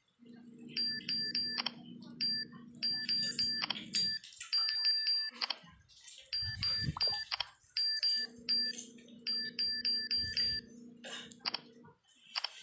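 Touchscreen keyboard key-press sounds on a smartphone: short high beeps in quick runs of about four a second as a message is typed. A low steady hum runs underneath during two stretches.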